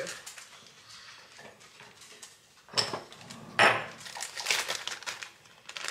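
A small glass spice jar and its metal lid being handled on the countertop: two sharp clinks about a second apart near the middle, then lighter knocks and the rustle of a plastic spice bag.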